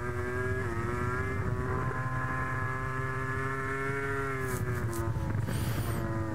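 MotoGP racing motorcycle engine running at high revs, its pitch steady, then dipping briefly about four and a half seconds in and rising again.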